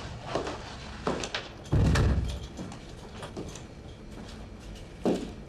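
Front door of an apartment pushed shut with a heavy thud about two seconds in, among lighter clicks and footsteps on a hard floor, with a sharper step or knock near the end.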